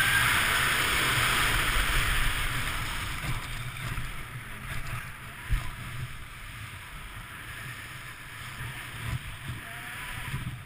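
Skis sliding over packed snow, with wind rushing over the microphone of a camera worn by the skier. Louder for the first two to three seconds, then quieter, with a single knock about five and a half seconds in.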